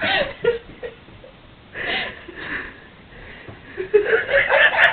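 Women laughing breathlessly in wheezy, gasping bursts, with a louder run of laughter near the end.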